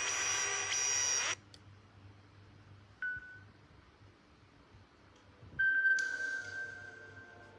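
Nokia N8-00 ringtones played through the phone's speaker. A multi-tone ringtone stops abruptly a little over a second in, a short beep sounds near the middle, and near the end a single bell-like tone starts sharply and fades out.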